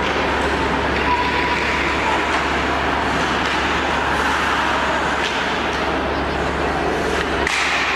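Steady low hum and broad hiss of an indoor ice rink's hall, with a few faint scrapes of hockey skates on the ice.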